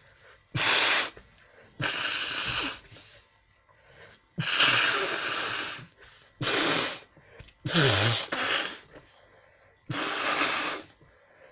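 A person sneezing over and over: six loud sneezes in about ten seconds, each a short burst of breath with a bit of voice in it.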